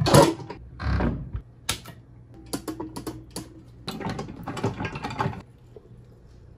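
Hard plastic sausage-stuffer tubes clicking and clattering as they are handled. The sound comes as scattered sharp clicks, then quick runs of clicks in the middle.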